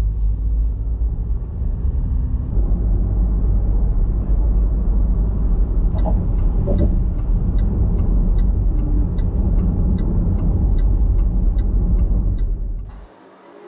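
Strong wind buffeting the microphone: a loud, deep rumble that cuts off suddenly near the end. A faint, regular ticking about three times a second runs through the second half.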